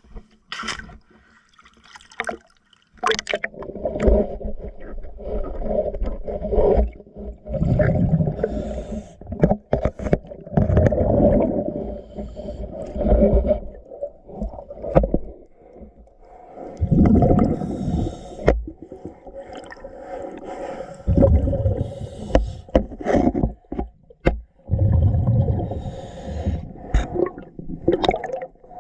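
A diver's breathing regulator heard underwater: bubbling, rumbling exhalations every four or five seconds, with short scraping strokes against the boat hull in between.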